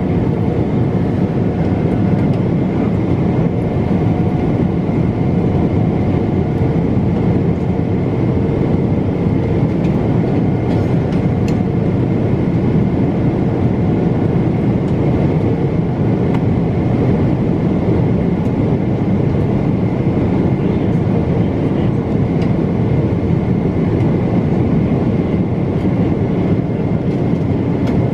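Steady roar of a jet airliner's engines and rushing air heard inside the passenger cabin at a window seat over the wing, with a faint steady whine above the roar.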